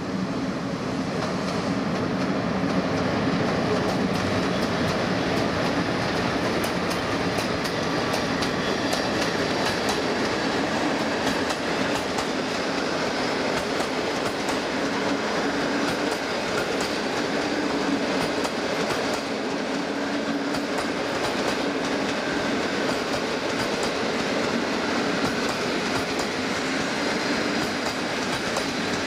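Locomotive-hauled passenger train, an EP09 and an EP07 electric locomotive pulling a rake of coaches, rolling steadily past, its wheels clicking over the rail joints.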